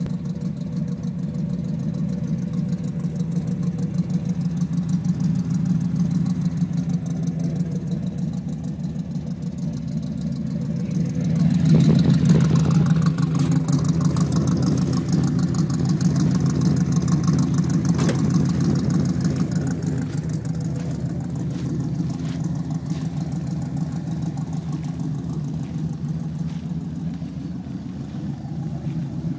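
Modified 355 cubic-inch small-block V8 running through side lakepipe exhaust, idling steadily with a deep, even pulse. About twelve seconds in it gets louder and brighter for several seconds, then settles back to idle.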